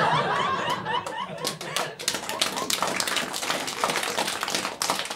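Audience laughing, then breaking into applause about a second and a half in, many hands clapping.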